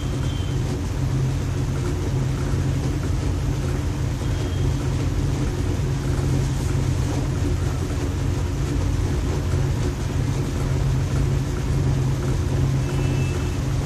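Electric fan running steadily: a low hum under an even rush of air.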